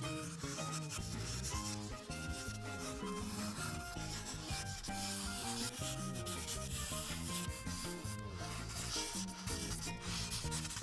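Ohuhu marker tip rubbing back and forth on paper in quick repeated strokes, a continuous scratchy stroking as a broad strip is coloured in.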